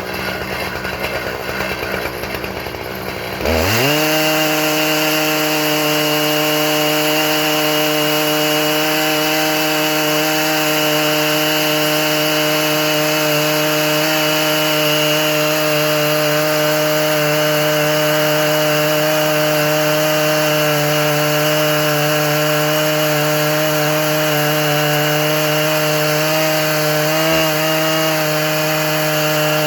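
Husqvarna 3120 two-stroke chainsaw on an Alaskan chainsaw mill. About three and a half seconds in it revs up sharply, then holds a steady high-pitched full-throttle run as it mills through the log.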